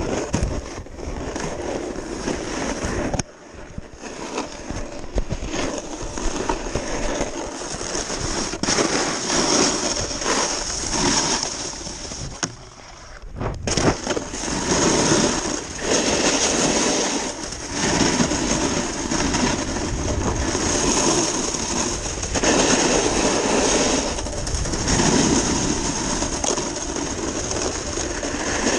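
Snowboard sliding and carving down a groomed slope: the board's base and edges scrape over the snow, the noise swelling and easing with each turn, with wind buffeting the microphone. The scraping drops away briefly twice, once about three seconds in and again just before halfway.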